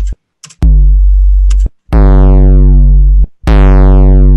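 808 bass note repeating about every one and a half seconds through Ableton's Saturator in soft-clip mode, the drive being turned up. The later notes are heavily saturated, bright and buzzy at the start and duller as they decay, the front-loaded harmonics that make a clipped 808 sound like an 808.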